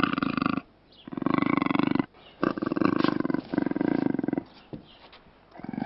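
Puma (cougar) vocalising: a series of rough, pulsing growl-like calls, each lasting up to about a second, with short pauses between them.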